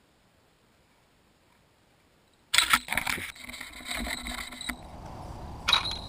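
Near silence, then about two and a half seconds in a sudden loud jangle from a small bell clipped to an ice-fishing rod. It goes on more softly, with a sharp clink near the end and a steady high ring after it.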